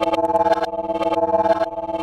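Heavily effects-processed music: a held chord with sharp clicks several times a second.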